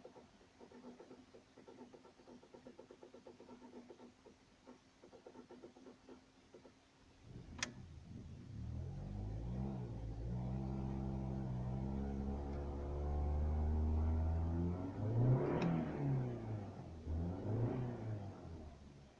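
BMW E46's N42 four-cylinder petrol engine cranking on the starter with a rapid even pulsing for about seven seconds, then catching with a sharp click and running. It is revved up and down several times, the last revs near the end. The long crank before it fires is the car's hard-starting fault.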